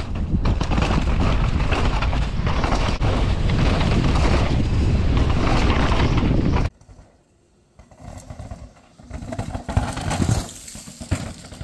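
Mountain bike running down a rough, dry, rocky trail: a loud, rough, constant rattle of tyres and bike over the ground. It cuts off abruptly about seven seconds in, leaving quieter, scattered noise.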